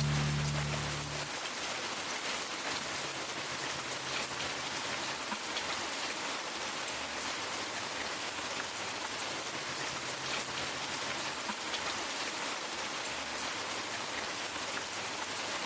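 Steady rain falling, an even hiss of many fine drops.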